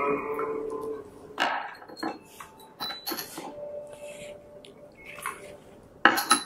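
Small porcelain tea cups clinking against each other and the tray as they are picked up and set down with tea tongs: several light knocks. The first is followed by a ringing tone lasting about a second.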